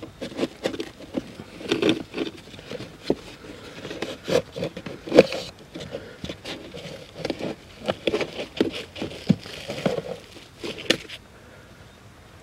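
Old pleated cabin air filter being pulled out of its plastic housing under a Volkswagen Scirocco's dashboard: irregular crinkling, scraping and clicking of the filter's pleats and frame against the plastic. The sounds stop about eleven seconds in.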